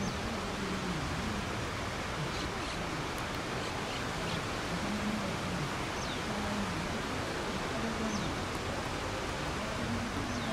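Steady rushing wind and water noise out on the sea. A few short, high chirps fall in pitch near the middle and end, over a faint low sound that rises and falls.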